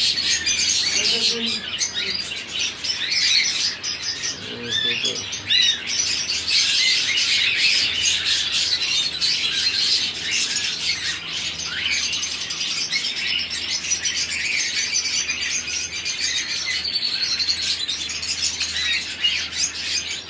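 Many caged small birds, budgerigars among them, chirping and chattering over one another in a dense, unbroken chorus.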